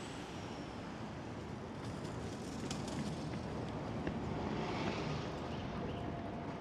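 City street traffic: a steady low rumble of passing vehicles, swelling briefly about four to five seconds in as one goes by, with faint scattered clicks.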